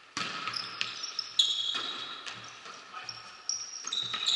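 Sounds of a volleyball rally on a gym court: several sharp hits of the ball and high squeaks of players' shoes on the court floor.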